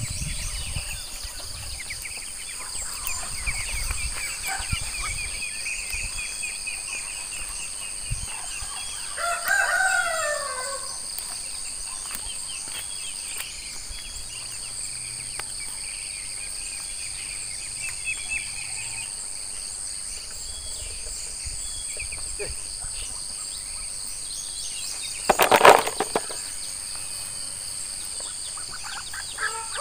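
Farmyard countryside ambience: a steady high insect drone throughout, with high chirping in the first few seconds. A chicken gives a falling call about ten seconds in, and a short loud burst comes near the end.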